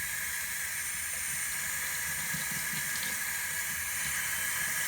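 Water running steadily from a tap at bath temperature, a continuous hiss that grows a little louder near the end.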